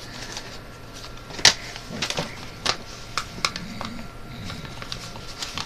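Sheet of paper being handled and folded: scattered crinkles and crisp creasing clicks, the sharpest about one and a half seconds in.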